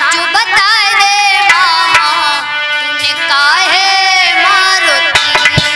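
A woman singing a Hindi devotional bhajan into a microphone, her melody wavering and ornamented, over drum strokes. About five seconds in the singing stops and the drumming carries on alone.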